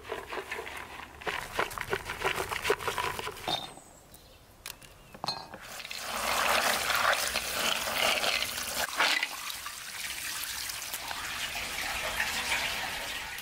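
Rosehips rattling in a quick run of clicks as they are poured from a plastic bucket onto a metal tray. Then comes a rush of water splashing, and near the end a steady stream of water poured into a large metal pan.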